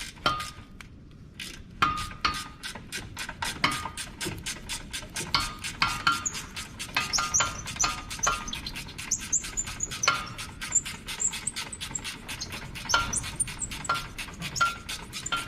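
Hand ratchet wrench clicking rapidly and evenly, about five clicks a second with a light metallic ring, as a loosened sway bar bushing bolt is spun out.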